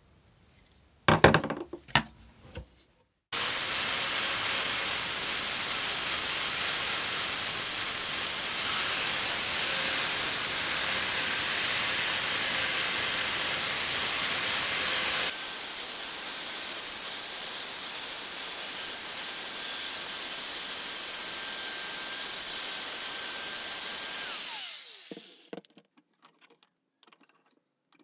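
Electric power tool running steadily on a metal hammer being restored, with a faint steady whine over the grinding noise; near the end the motor winds down, its pitch falling, before a few light knocks of handling. A short clatter of handling comes just before it starts.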